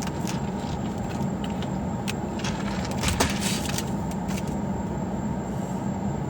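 Steady low rumble of a car, with a few faint clicks.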